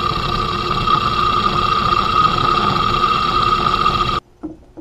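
Atlas drill press running at its slowed speed of about 330 RPM, a half-inch bit cutting through quarter-inch steel plate: a steady running sound with a high whine. It cuts off suddenly near the end, followed by a faint click or two.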